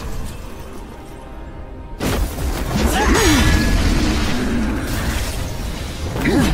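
Film fight-scene soundtrack: a low rumble under music, then about two seconds in a sudden loud crash followed by dense crackling and whooshes as lightning strikes.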